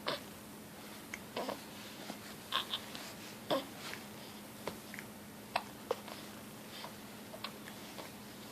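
Baby hiccuping: a string of short, sharp hiccups, roughly one every half second to a second, with small baby noises between them.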